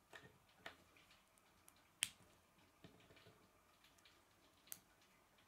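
K'nex plastic connectors snapping onto a rod: a few separate sharp clicks, the loudest about two seconds in.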